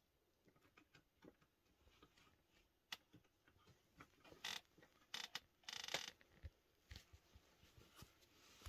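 Faint clicks and small scratches on wood, with a few louder short rustles between about four and six seconds in as a cat gets up off a blanket and moves down through the cabinet shelves.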